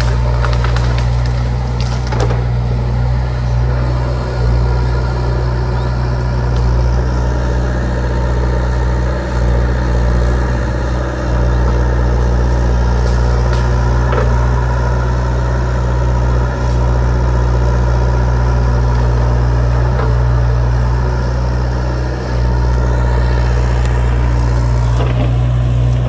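Hyundai HX60A excavator's diesel engine running steadily as the machine digs at a tree's roots.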